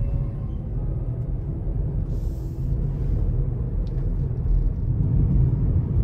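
Steady low rumble of road and engine noise heard from inside a moving car.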